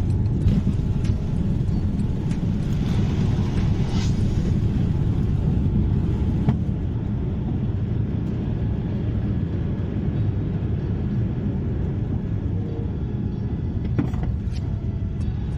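Cabin noise of an Airbus airliner taking off and climbing out: a loud, steady rumble of the jet engines and rushing air, with a few faint knocks.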